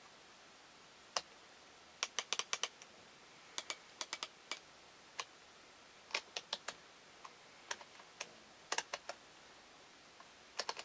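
Sharp mechanical clicks from the DP-66 Geiger counter's rotary range selector switch being turned by hand, its detents clicking in quick runs of two to five with short pauses between.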